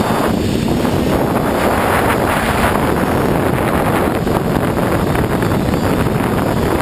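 Steady rush of wind noise on the microphone of an FPV multirotor in fast, low flight, with no clear motor tone standing out.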